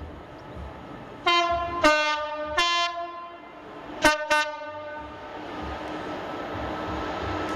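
Class 66 diesel locomotive sounding its two-tone horn: three blasts in quick succession, then two short ones about a second later. After that the locomotive's engine and train noise grow steadily louder as it approaches.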